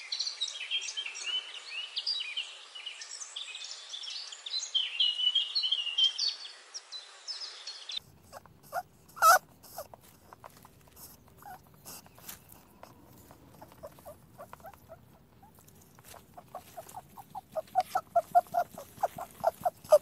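Small animals' calls: a dense run of high chirps that cuts off about eight seconds in, then scattered clicks with one sharp knock. Near the end comes a fast, growing run of short squeaks, several a second.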